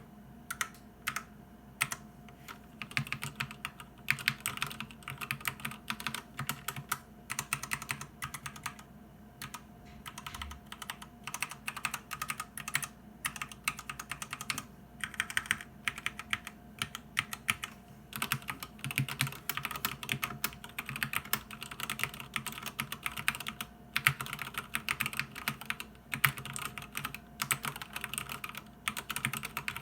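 SteelSeries Apex Pro mechanical keyboard with OmniPoint adjustable switches being typed on fast: a dense, continuous run of key clacks broken by a few brief pauses.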